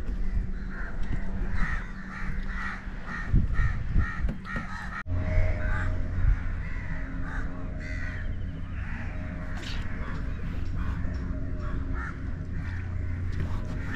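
A bird calling over and over in runs of short notes, several a second; from about five seconds in a steady low hum runs underneath.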